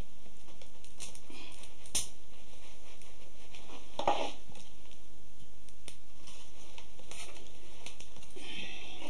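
Thin wooden splints of a woven basket crackling and rustling as a soaked strand is drawn through the rim and pulled tight. There are a few sharp clicks, the loudest about four seconds in, and a longer rustle near the end, over a steady hiss.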